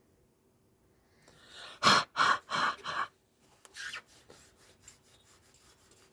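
Four short, forceful breaths blown onto a glass plate in quick succession, about three a second, followed by faint quick rubbing as the glass is wiped clean.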